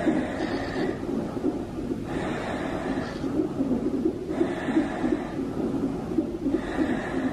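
A woman in labour breathing hard through a gas-and-air (Entonox) mouthpiece, each long drawn breath rushing through the valve, several times about every two seconds, over a steady low rumble.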